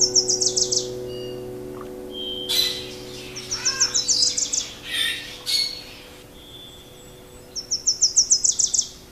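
A small songbird's trill, a quick run of about eight high chirps under a second long, heard three times. Short bursts of rushing noise come between the trills, over a held low chord that fades out partway through.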